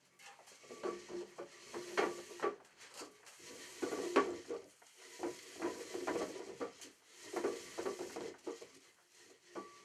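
Spools of twine turning on a rod as cord is pulled off them by hand: irregular rattling and rubbing, with short squeaks.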